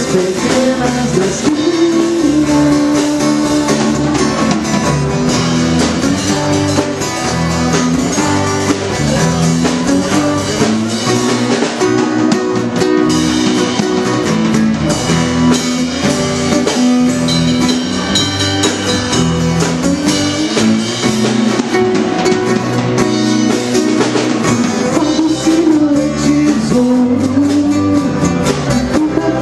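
Live band playing a song: electric bass, strummed acoustic twelve-string guitar and drum kit, with a singer.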